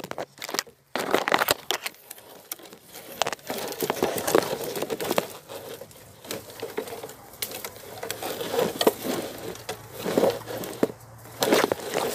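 Dry leaves and twigs crackling and rustling, with many irregular sharp clicks.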